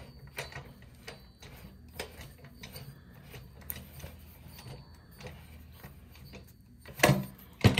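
Faint, irregular metallic clicks and ticks as the soil injector's probe is turned by hand, screwing back into its piston cylinder. A couple of louder knocks near the end.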